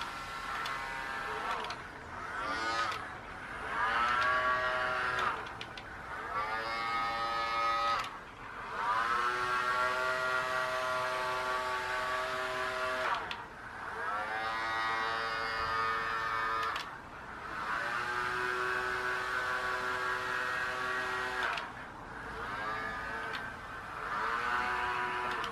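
Small electric motors of a homemade radio-controlled boat whining as they drive its propellers, in repeated bursts of a few seconds as the controls are pressed and released. Each burst starts with a rising whine as the motors spin up, holds a steady pitch, then cuts off.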